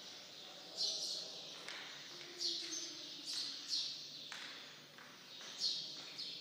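Small birds chirping: short, high, slightly falling chirps repeating irregularly, about once a second.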